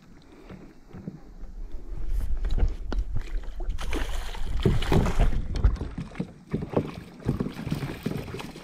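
Water sloshing and splashing around a fishing kayak, with a low wind rumble on the microphone and many short knocks and clicks of handling. It grows louder about a second and a half in.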